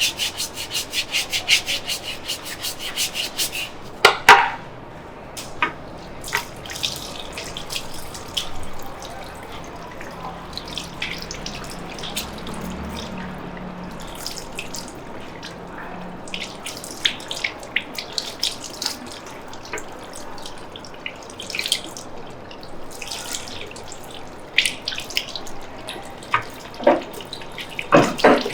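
Quick rhythmic rubbing strokes on skin or hair, about four a second, stop after about three seconds. A sharp knock follows, then water running into a basin with scattered splashes and drips, as in a barbershop wash.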